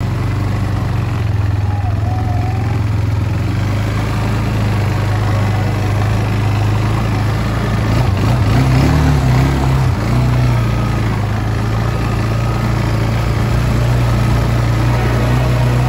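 ATV engine running at low trail speed, a steady low hum. A little past halfway its pitch rises briefly and it gets louder, then it settles back.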